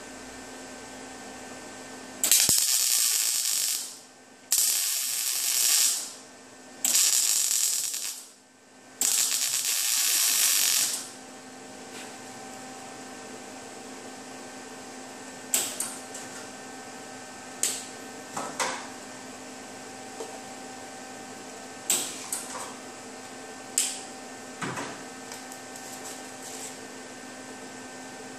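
MIG welder laying plug welds through the drilled spot-weld holes of a new steel radiator support: four bursts of welding hiss, each one and a half to two seconds long, in the first eleven seconds. After that a steady low hum with a handful of sharp clicks spaced a second or two apart.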